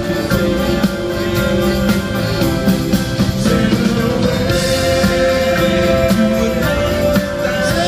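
Live rock band playing, with a drum kit keeping a steady beat under guitar and long held notes.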